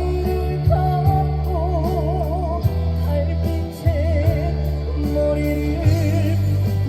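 Trot song sung live through a PA: a male voice holding long notes with wide vibrato over a backing track with a steady bass.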